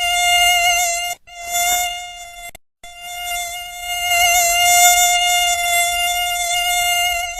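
Mosquito wingbeat whine: one steady high-pitched hum. It cuts out briefly about a second in, fades, and stops altogether for a moment just before three seconds, then comes back.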